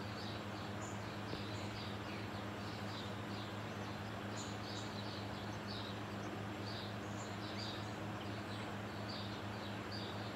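Ceiling fan running steadily: a low electric motor hum over a steady rush of air, with short high chirps about every second. The owner calls the fan's bearings rooted, meaning worn out.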